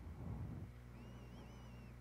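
KitchenAid Professional 6000 HD stand mixer running at medium-low speed, a faint steady motor hum with the beater churning through fish paste in the steel bowl. A faint high warbling whistle comes in about halfway through.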